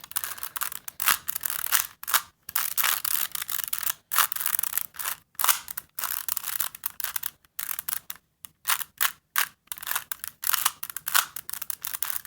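3x3 Rubik's Cube being scrambled by hand: rapid, irregular plastic clicks and scrapes as the layers are turned, with several brief pauses.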